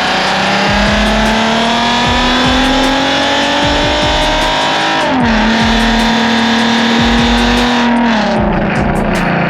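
Ford Mustang's 3.7-litre V6 engine revving up under load, its pitch climbing steadily for about five seconds. The pitch shifts abruptly, holds, then falls near the end as it eases off. Music plays along with it.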